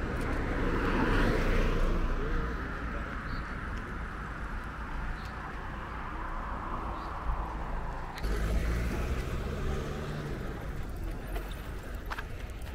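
Cars passing on the road: tyre and engine noise from one car going by in the first two seconds and another about eight seconds in, over a steady low rumble of traffic.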